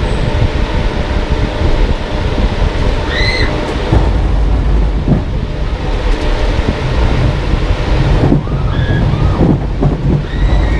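Loud, steady low rumble of a train running, from the ghost train dark ride's effects soundtrack, with a few short wavering cries over it about three seconds in and again near the end.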